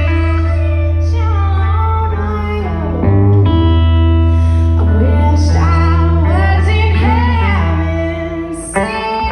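Live blues-rock song: a woman singing over electric guitar and a low sustained bass note that shifts pitch about three seconds in.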